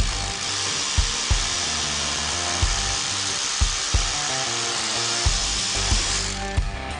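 Bosch GBH 2-24 DRE rotary hammer drilling with a steady high hiss, which cuts off about six seconds in. Background music with a regular beat plays throughout.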